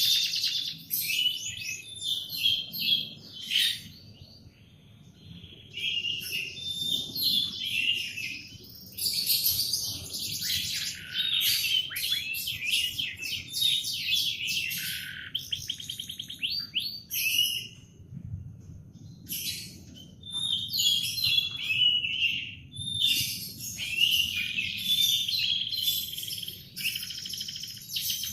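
Canary singing: long phrases of fast trills and rolling chirps, broken by short pauses, one of about two seconds near the start.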